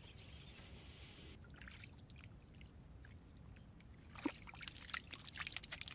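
Faint wet sloshing of mud and water as a round snail trap is lifted from the mudflat. In the last second or two come a scatter of small clicks: sea snails rattling inside the trap as it is shaken, the sign that it holds a catch rather than only mud.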